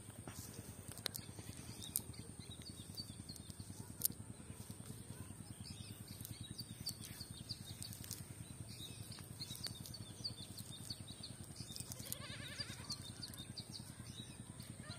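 Outdoor ambience: a steady high-pitched whine, faint scattered chirps and a few sharp clicks, and a wavering animal call about twelve seconds in.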